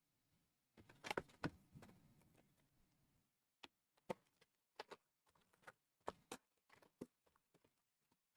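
Trading card packs and box being handled: a short burst of rustling and crackling, then a string of separate light clicks and taps about half a second apart.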